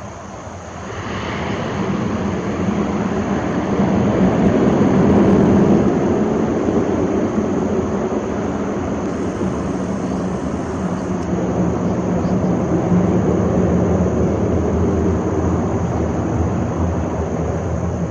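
Twin-turboprop ATR 72-600 engines coming up to takeoff power about a second in, then a loud, steady drone as the aircraft accelerates away down the runway.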